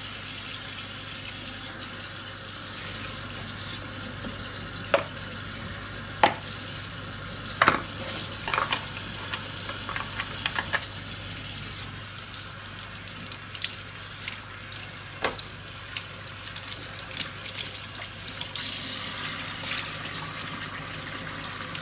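Kitchen tap running into a ceramic sink as hands and brush heads are rinsed under the stream, with a few sharp clicks and knocks of things handled in the sink. The hiss of the water thins about halfway through.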